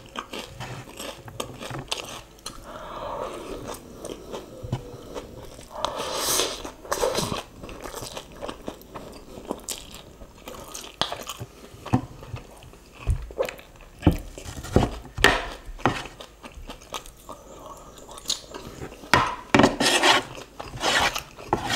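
Close-up eating sounds of instant noodles in chili oil: irregular slurping and chewing, with scattered small clicks and knocks from wooden utensils in the metal tray.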